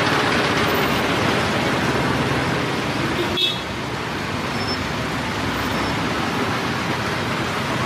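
Street traffic noise: a steady mix of vehicle engines and road noise, with one brief sharp sound about three and a half seconds in.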